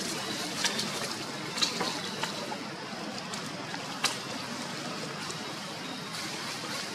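Steady outdoor background hiss, broken by a handful of sharp clicks or crackles, the loudest about one and a half and four seconds in.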